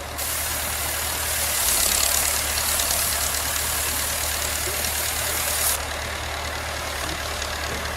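Engine-driven rice thresher running steadily: a low engine hum under a dense whirring hiss of the threshing drum. The hiss eases a little about two-thirds of the way through.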